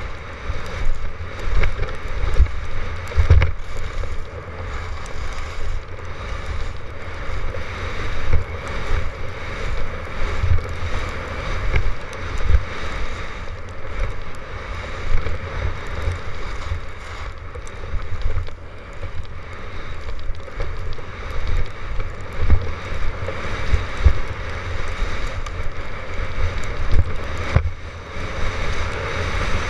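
Wind buffeting the microphone of a camera worn by a downhill skier, with a steady hiss of skis sliding over packed, groomed snow. The low rumble surges and drops in gusts as the skier's speed changes.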